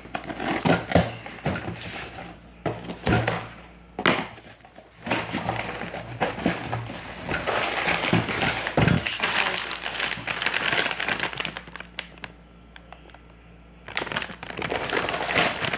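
Packaging being handled and opened: plastic and cardboard crinkling and rustling, with irregular sharp clicks and knocks and a quieter pause near the end.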